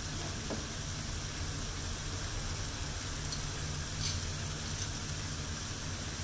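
Beef steak searing in a hot frying pan: a steady sizzle over a low hum, with a faint pop about four seconds in.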